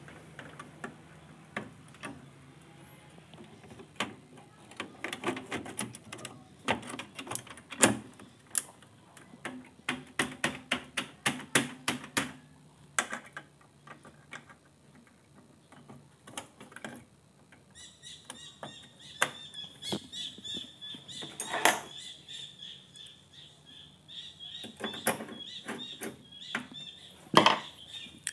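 Irregular clicks, taps and knocks of hands working on an opened LCD TV: cable connectors being pushed onto the power supply board and parts of the metal chassis being handled. From about two-thirds of the way through, a rapid high chirping runs in the background.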